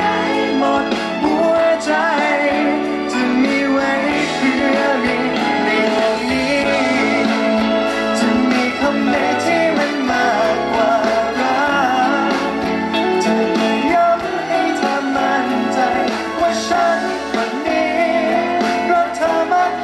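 Male vocalist singing a pop ballad live into a handheld microphone, with electric guitar accompaniment, amplified through a stage sound system.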